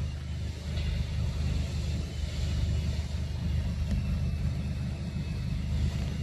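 A steady low rumble with a faint high hiss above it.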